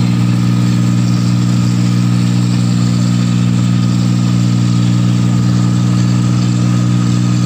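8070 combine harvester running steadily as it cuts rice paddy: a loud, unbroken drone of engine and machinery with a deep steady hum.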